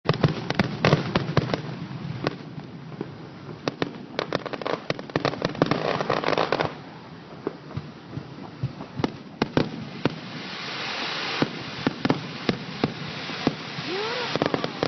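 Fireworks going off: many sharp bangs and pops at irregular intervals over a running crackle. Dense hissing crackles build up twice in the second half.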